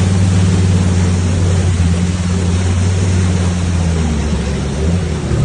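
Off-road vehicle's engine running steadily under load as it drives through deep floodwater, heard from inside the cab, with the water rushing and surging against the front of the vehicle.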